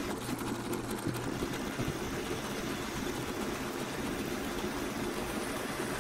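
Bench drill press running steadily, its twist bit boring into steel and throwing off curled metal chips.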